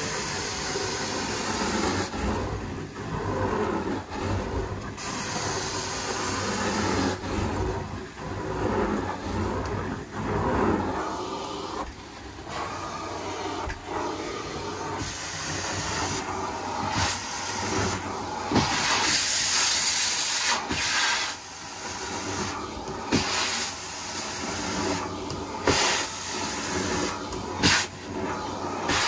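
Hot-water extraction carpet-cleaning wand hissing as it sprays and sucks water from the carpet. The hiss comes and goes in repeated strokes over a steady low hum from the vacuum line.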